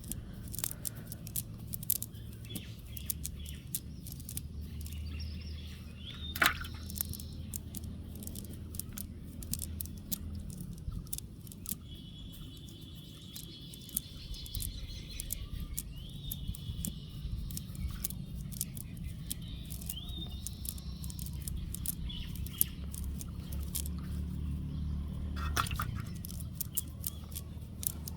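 Birds calling several times in short chirps over a steady low rumble, with frequent short clicks and knocks throughout.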